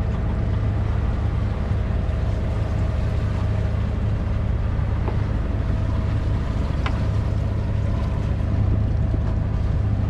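Sailing yacht's engine running steadily under way while motoring, a continuous low drone.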